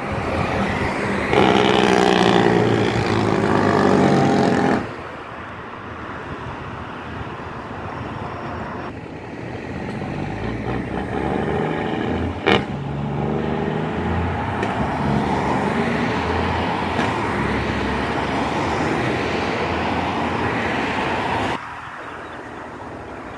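Road traffic passing close by: car engines and tyre noise. The loudest vehicle goes by in the first few seconds, a single sharp click comes about twelve seconds in, and the sound drops off suddenly near the end.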